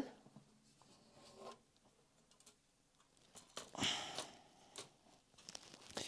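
Faint handling of a Lenovo ThinkPad X1 Extreme's bottom cover as it is set back onto the laptop: a brief sliding sound about four seconds in, and a few light clicks near the end as the cover's edge is pressed down.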